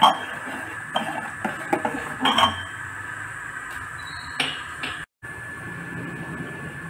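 A metal spoon stirring dal in a pressure cooker pot, clinking and scraping against the metal sides several times over the first few seconds.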